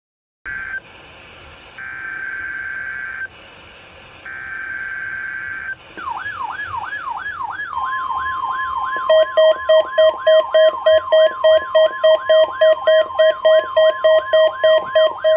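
NOAA Weather Radio emergency alert test: three short bursts of raspy digital EAS header data, then alert alarms sounding together. These are a siren-like warble repeating about three times a second, the steady single-pitch weather radio warning alarm tone, and a loud pulsing beep at about three a second.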